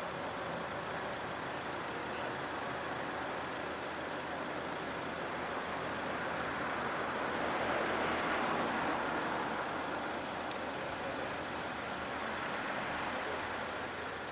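Street traffic noise with a passing road vehicle: a rushing sound that builds to its loudest a little past halfway and then fades.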